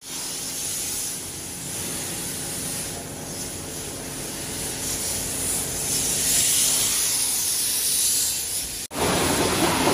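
Steady hissing spray from a car wash high-pressure hose, swelling and easing as it is moved about. Near the end it cuts off abruptly and a louder, deeper rushing spray takes over.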